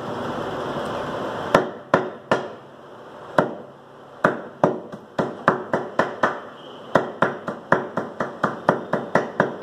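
A heavy meat cleaver chopping boneless chicken on a wooden chopping block, mincing it into keema by hand. A second and a half of steady noise comes first. Then come separate strikes that speed up into a quick, regular chopping of about three strikes a second.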